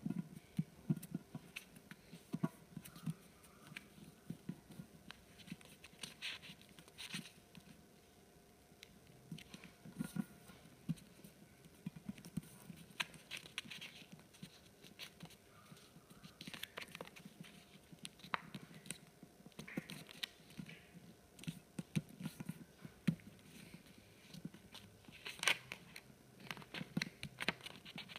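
Sheet of paper being folded and creased by hand on a glass tabletop: faint, intermittent rustles and crinkles with short clicks and soft knocks as fingers press and run along the folds.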